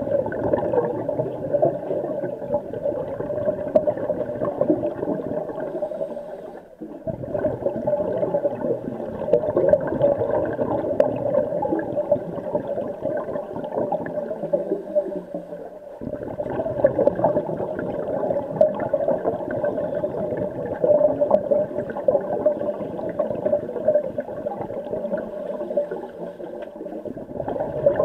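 Underwater pool noise picked up by a submerged camera: a steady, muffled water hiss with faint crackles, dipping briefly about seven seconds in.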